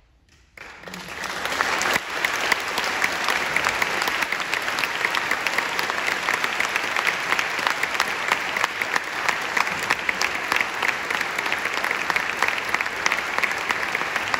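Audience applauding. It starts from near silence about half a second in, swells over the next second or so, and then holds steady.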